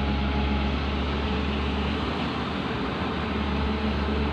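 Backhoe's diesel engine running steadily with a low, even drone.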